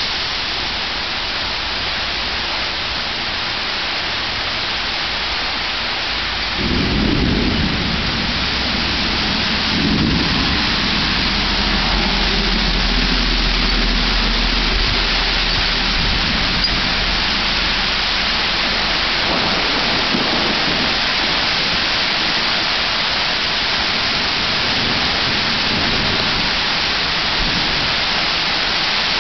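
Steady heavy rain falling, with a long roll of thunder rumbling in about seven seconds in, swelling again a few seconds later and then fading back under the rain.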